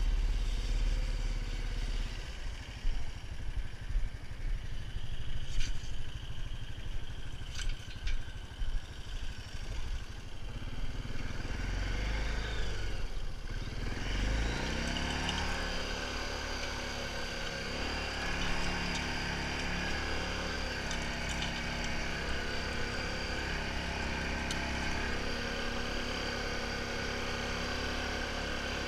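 Honda TRX500FA ATV's single-cylinder engine running while it pulls a spring-tine harrow through tilled soil, with uneven knocks and rattles in the first half. About halfway through the engine speeds up and then holds a steady pitch.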